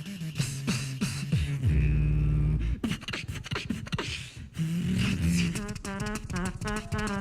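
Beatboxing: a rhythm of deep vocal bass notes, falling bass slides and sharp clicks, with a heavy bass held for about a second about two seconds in. From about five and a half seconds a wavering hummed melody rides over the beat.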